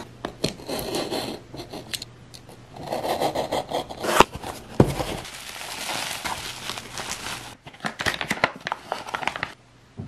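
A blade scraping and slitting the packing tape on a padded paper mailer, then the packaging and plastic bubble wrap rustling and crinkling as they are pulled open and handled, with a few sharp knocks about halfway through. The handling noise stops shortly before the end.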